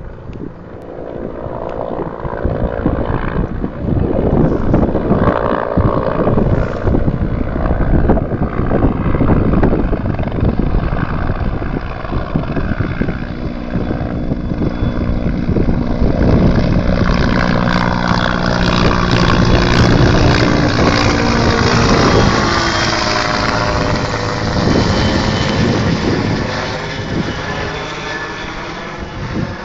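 Firefighting helicopter with a water bucket slung beneath it flying in and passing low overhead. The rotor and engine noise builds over the first few seconds and stays loud, with a steady rotor beat showing from about halfway through, and eases a little near the end.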